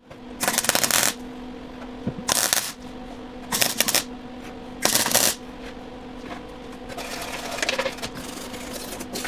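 Arc welder crackling in short bursts as sheet-metal welds are laid on a car's inner fender. There are four bursts of about half a second each in the first five seconds and a longer, quieter stretch near the end, over a steady low hum.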